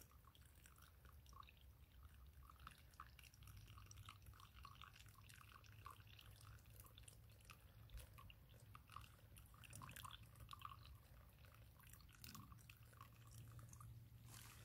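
Near silence with faint, irregular crackling and ticking of hot water seeping through coffee grounds in a pour-over drip filter.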